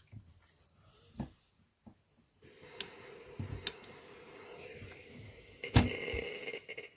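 Steam iron pressing a freshly folded fabric bias strip: a soft steady hiss sets in about two and a half seconds in, with one sharp knock of the iron near the end.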